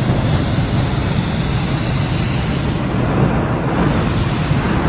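Hot air balloon's propane burner firing: a loud, steady roar.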